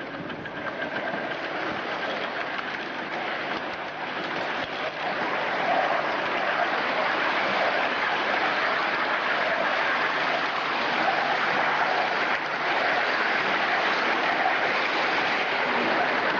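A 5-inch gauge live-steam model of an LNER B1 4-6-0 locomotive running along the track, heard from the moving train as a steady rushing noise that grows louder over the first six seconds or so.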